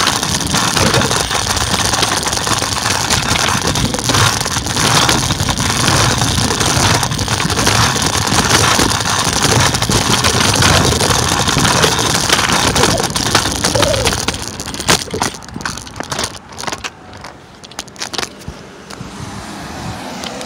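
Scooter riding noise: wind buffeting the microphone and wheels rolling over pavement, with frequent clicks and knocks. About fifteen seconds in the noise drops off, leaving scattered knocks.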